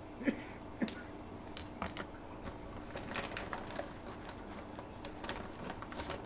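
Newborn Ragdoll kittens suckling at their mother: an irregular run of small wet clicks and smacks, with a brief squeak near the start, the loudest sound, over a faint steady hum.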